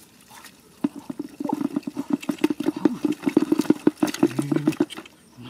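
Rhythmic splashing and sloshing of muddy water as a woven basket holding caught fish is swished through a shallow puddle, starting about a second in and stopping shortly before the end.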